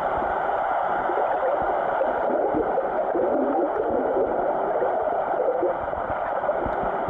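Steady, muffled rush of water recorded underwater, an even wash with no distinct events.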